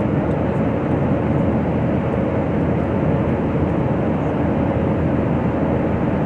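Airliner cabin noise: the steady rumble of the jet engines and rushing air, heard from inside the passenger cabin.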